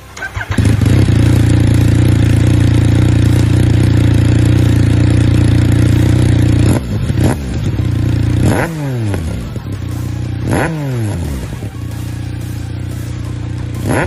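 Yamaha XSR 900's inline-three engine through a GPR M3 full exhaust system, held at steady revs for about six seconds. It is then blipped several times, each throttle stab rising sharply and the revs falling away.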